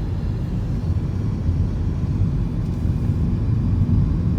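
Car driving along at steady speed: a constant low rumble of road and engine noise.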